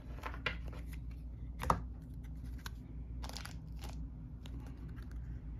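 Hands handling board-game cards and paper pieces: scattered rustles, crinkles and light taps, the sharpest tap about a second and a half in.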